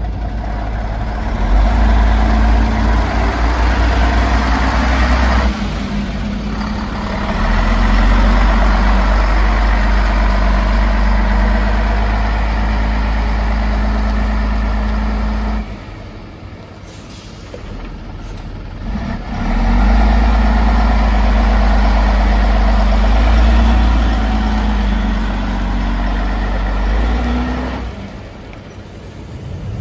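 Foden 8x6 hookloader's diesel engine running, revved up and held at higher revs for several seconds three times, dropping back toward idle in between.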